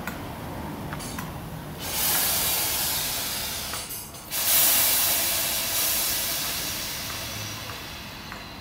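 Compressed air venting with a loud hiss from a ScotRail electric multiple unit standing at the platform, in two bursts: one starting about two seconds in and stopping sharply after two seconds, then a louder one just after four seconds that fades away slowly.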